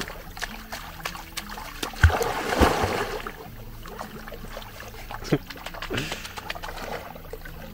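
Water splashing and sloshing as a German Shepherd swims and paddles in shallow river water, with a person wading beside it. A few sharper splashes come about two to three seconds in.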